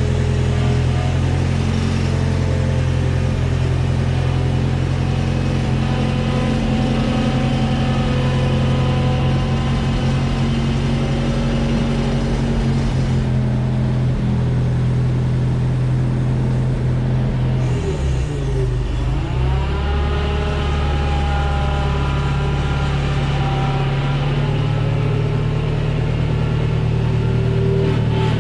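New Holland L775 skid steer's engine running steadily at working throttle. About eighteen seconds in, its pitch dips briefly and climbs back.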